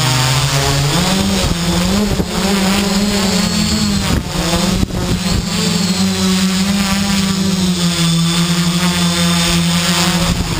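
Quadcopter's electric motors and propellers whining, heard from the onboard camera. The pitch dips near the start, climbs back and then holds fairly steady as the throttle changes, with a few brief knocks.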